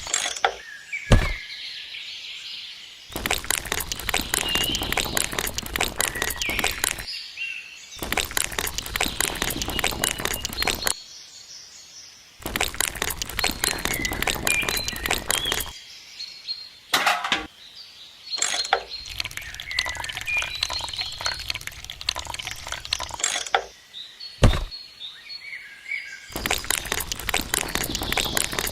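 Bursts of dense crackling clatter lasting a few seconds each, starting and stopping abruptly five times, with a sharp knock about a second in and another near the end. Birds chirp in the background.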